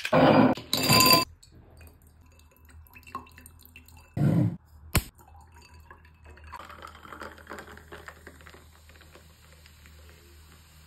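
Ice rattling hard in a stainless steel cocktail shaker for about a second, then a short loud clatter about four seconds in and a sharp click. Clear soda then pours from a plastic bottle into a wine glass over ice, fizzing and crackling softly as it foams.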